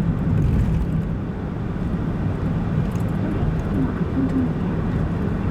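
Steady low rumble of a car driving at a constant pace, engine and tyre noise heard from inside the cabin.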